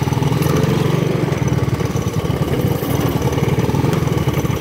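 Small single-cylinder engines running at low speed: a Honda Big Red three-wheeler under the rider, with a go-kart's engine alongside. A steady, even throb with no revving.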